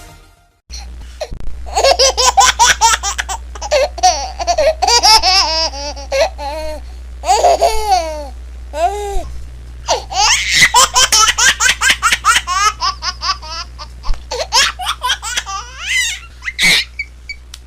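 Baby laughing in long bouts of quick, high-pitched bursts, fit after fit, over a low steady hum.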